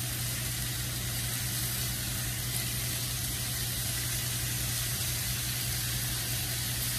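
Pork chops sizzling steadily on a hot flat griddle, over a steady low hum.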